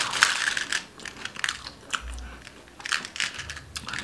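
Crinkly plastic packaging handled in the hands: a run of short, irregular crackling rustles as a small clear plastic mint box is taken out of its packet.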